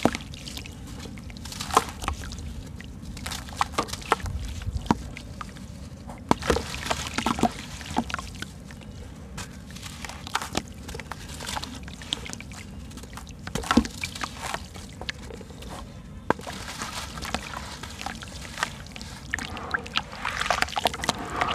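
Soft sand-cement chunks crumbled by hand into a basin of water: gritty crumbling and irregular sharp crackles, with crumbs dropping into the water and sloshing as the hands work the wet sand.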